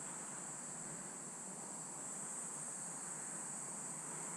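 Steady, high-pitched chorus of insects, with faint background hiss.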